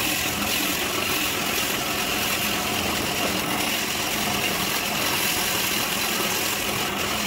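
Bandsaw cutting a curved line through a thick hardwood slab, a steady, unbroken running noise from the motor and blade.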